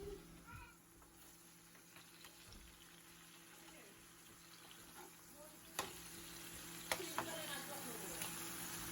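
Seasoned shrimp frying in butter in a pot, a faint sizzle that grows louder through the second half. A couple of sharp clicks about six and seven seconds in.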